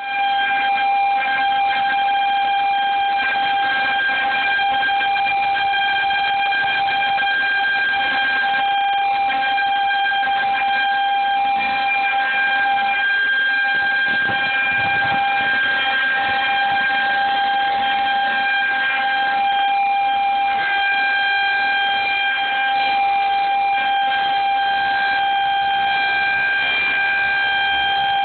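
Outdoor tornado warning siren sounding a loud, steady tone held at one pitch, without rising, falling or pulsing.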